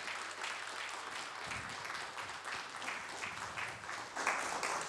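Audience applauding, a dense patter of many hands clapping, growing a little louder near the end.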